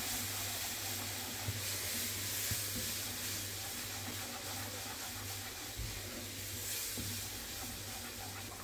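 A cornmeal, butter and water mixture sizzling in a nonstick frying pan while a wooden spoon stirs it continuously, with a steady soft hiss and faint scrapes of the spoon. The water has just gone in over the toasted cornmeal and is being stirred to keep it from going lumpy.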